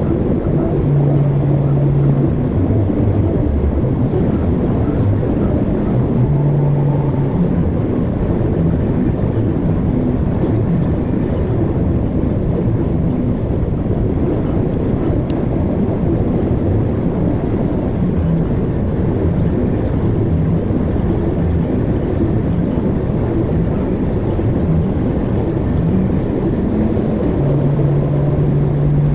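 Steady road noise of a vehicle driving on the highway: a dense low rumble of tyres and drivetrain. A low droning hum comes in briefly a couple of times and again near the end.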